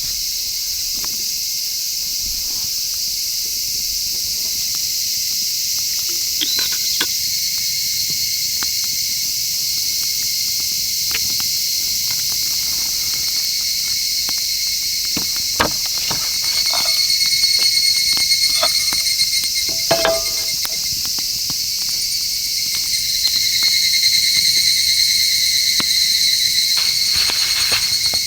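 Dense, steady, high-pitched chorus of insects chirring, with a clearer trilling note that grows stronger around the middle and again near the end. Scattered faint clicks and small knocks sound underneath.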